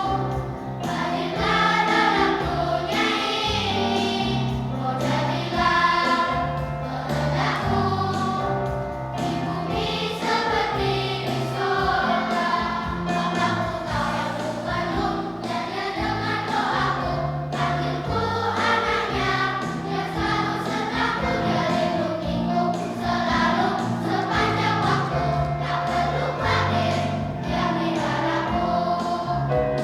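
Church choir singing a hymn-anthem in parts with instrumental accompaniment.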